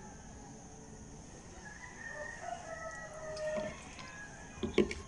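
A rooster crowing in the background, a drawn-out pitched call about two seconds in. Near the end, a few sharp knocks as the plastic gimbal is handled and set down on the table.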